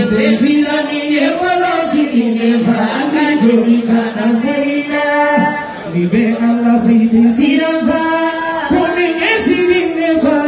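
A woman and a man singing through handheld microphones, taking turns on a melody of long held notes.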